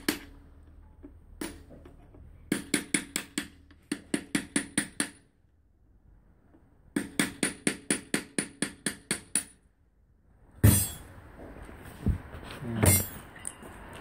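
Hammer blows on a steel drift punch driving at the wheel bearing in a rusty Opel Corsa brake-drum hub clamped in a vise. Quick runs of ringing metallic strikes come about five a second, in several bursts with short pauses between. Near the end there are a few heavier, duller knocks.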